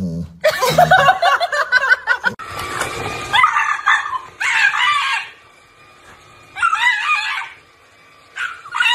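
A dog making a long run of wavering, moaning calls for about two seconds, then, after a break, a dog giving three or four short bursts of high, yelping barks over a faint steady whine from a cordless stick vacuum.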